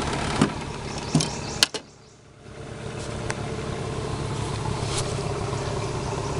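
A small boat motor idling steadily, with several sharp knocks against the aluminum boat in the first two seconds and a couple more later; the sound drops away briefly about two seconds in.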